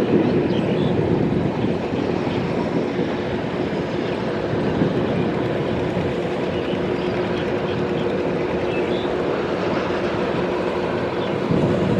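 Kubota DC-70 Plus rice combine harvester running steadily, its diesel engine holding a constant pitch.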